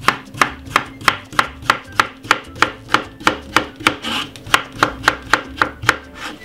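Knife slicing a cucumber into rounds on a bamboo chopping board, the blade knocking the board about three times a second, with a brief break about four seconds in.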